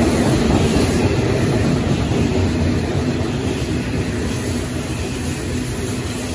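Coal train's hopper wagons rolling past close by: a steady heavy rumble of steel wheels on rail, gradually easing in level.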